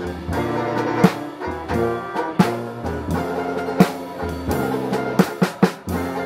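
Live Dixieland jazz band playing, with sharp drum-kit strikes over held bass notes.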